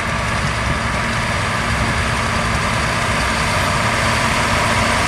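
Heavy construction vehicle's engine running steadily, a deep rumble under a broad hiss.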